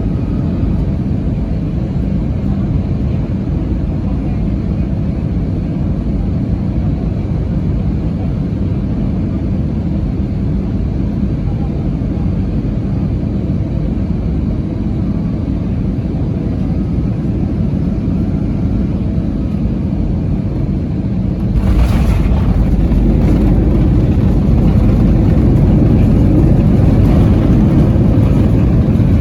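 Landing aircraft's steady low engine rumble, which about three-quarters of the way in turns suddenly louder, deeper and hissier.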